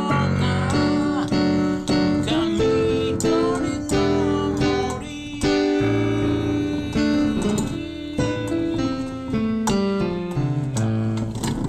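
Digital piano played with both hands, with a man's voice singing along. Near the end the notes step downward in a descending run.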